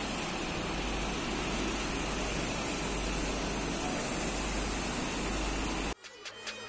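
Steady low rumble and hiss of background noise that cuts off suddenly about six seconds in, followed by the faint start of a rhythmic electronic music intro.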